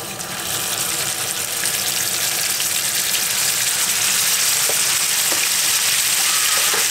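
Bacon sizzling as the strips are laid into hot oil in a frying pan, the sizzle growing louder over the first few seconds and then holding steady.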